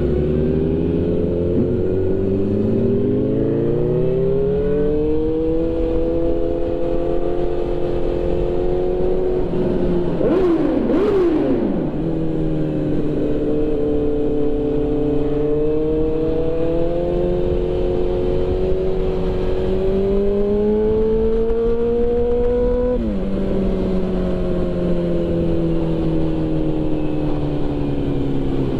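2005 Suzuki GSX-R 1000 inline-four engine under way, heard from the rider's seat. It revs up through the gears over the first few seconds and holds a cruising note with small throttle changes. About 23 seconds in the revs drop sharply and keep falling as the throttle is closed and the bike slows on engine braking. There is a brief whoosh about ten seconds in.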